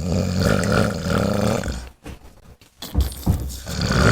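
A sleeping man's loud, truck-like snoring: one long snore, a pause, then a second long snore starting about three seconds in.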